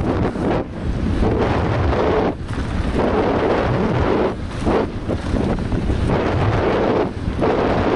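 Loud wind rumble buffeting a helmet-mounted camera's microphone during a fast downhill mountain bike descent, mixed with the tyres and bike rattling over a rough, rocky dirt trail. The noise is continuous and dips briefly a few times.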